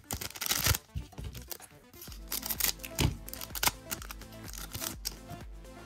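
A trading-card booster pack wrapper is torn open with a loud rip in the first second, then crinkles and crackles as it is pulled apart and the cards are handled. Background music plays underneath.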